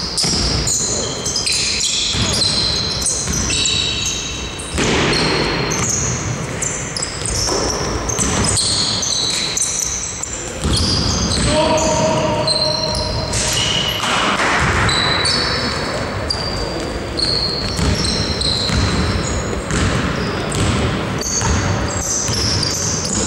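Sounds of an indoor basketball game in a reverberant sports hall: sneakers squeaking on the court floor, the ball bouncing, and players calling out to each other.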